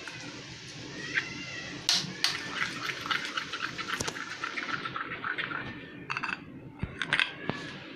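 Raw eggs with chopped onion, tomato and capsicum being beaten in a bowl with a utensil. There is wet sloshing, and a fast run of clicking taps against the bowl from about two to five seconds in. A few separate knocks come near the end.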